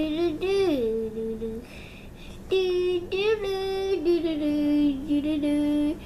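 A young girl singing held, wordless notes in two phrases, with a short pause a second or two in.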